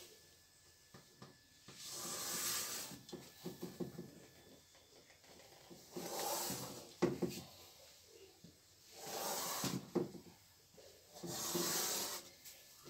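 Chalk scraping on a blackboard as straight lines are drawn: four long strokes of about a second each, with short taps of the chalk on the board between them.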